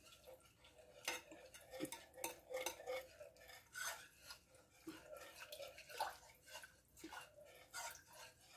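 Faint whisk scraping and clicking irregularly against the sides and bottom of a saucepan while stirring honey, brown sugar and soy sauce together.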